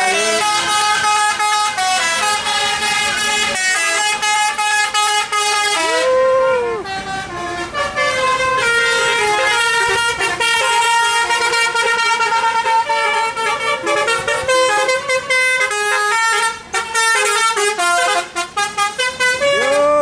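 Telolet horn on a tour bus, a multi-tone musical horn playing a fast melody of stepped notes without a break, with a few short swooping notes.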